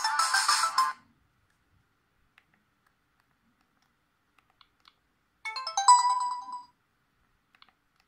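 Sony Ericsson K530i ringtones previewed on the phone's small speaker. One synthesized ringtone cuts off about a second in. Faint keypad clicks follow as the ringtone list is scrolled, then a short bright electronic ringtone snippet plays for about a second just past halfway and stops abruptly.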